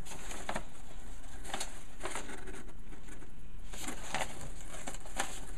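Pages of a paper instruction booklet being flipped by hand: several short, separate rustles over a steady low hum.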